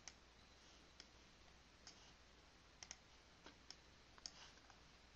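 Faint computer mouse clicks, about ten, irregularly spaced, some in quick pairs, over near-silent room tone.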